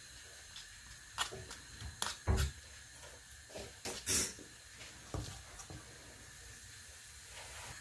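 Steel spoon pressing and scraping veggie burger mixture into metal heart-shaped cutlet moulds on a wooden board, with a few scattered light clicks and knocks of spoon on metal and wood.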